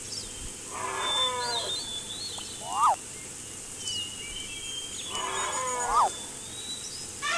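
A wildlife sound-effects track of animal calls. Two falling calls with several tones come about a second in and again about five seconds in, and two loud, sharp chirps come near the middle and near the end, all over continuous high bird twittering.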